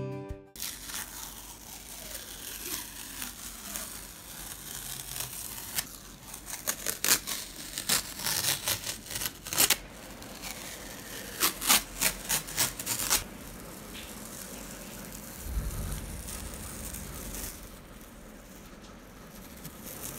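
Masking tape being peeled off the edge of watercolour paper, in crackly ripping runs: a series between about 6 and 10 seconds in and another around 12 seconds in.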